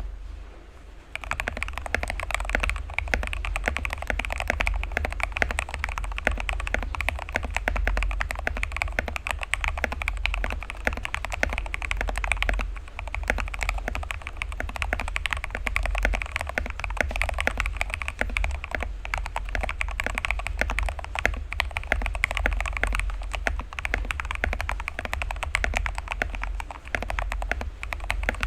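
Fast, continuous typing on a Royal Kludge RK68 mechanical keyboard with lubed Gateron Milky Yellow linear switches and XDA keycaps, tape- and foam-modded for a deep, thoccy keystroke sound. The typing starts about a second in, over a steady low hum.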